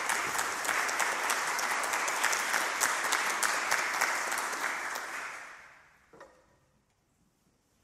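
Audience applauding, a dense patter of many hands that dies away about five to six seconds in, followed by a faint knock.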